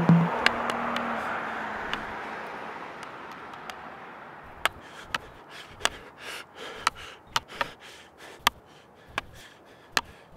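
A ringing wash fades out over the first four seconds or so. Then come sharp, irregular clicks of field hockey sticks tapping the ball, one or two a second, with short rustling bursts between them.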